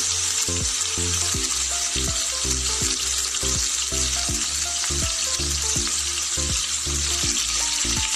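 Pork ribs searing in hot cooking oil in a frying pan, a steady sizzle, over background music with a repeating low melody.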